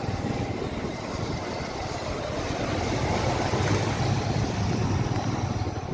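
Steady engine rumble and road noise from riding in traffic close behind a motorcycle and a van, growing a little louder about halfway through.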